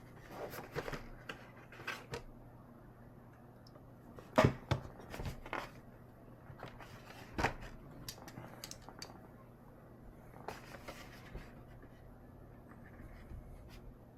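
Handling noise of a small cardboard box being turned over and searched: soft rustling with scattered taps and clicks, the sharpest a little over four seconds in and about seven and a half seconds in. A faint steady low hum sits underneath.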